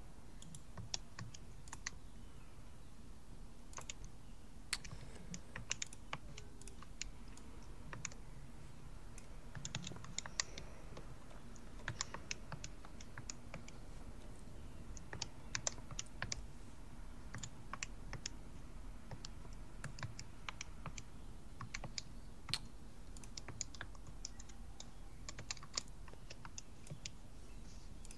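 Scattered, irregular clicks and taps of a computer keyboard and mouse, over a faint steady low hum.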